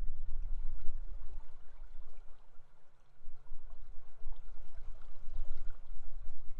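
River water rushing past, heard as a steady wash with a deep rumble that swells and dips.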